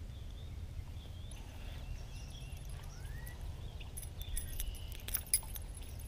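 Light metallic clicking and jingling of a spinnerbait's blade and split ring being handled, from about four seconds in, over a low steady rumble with a few faint bird chirps.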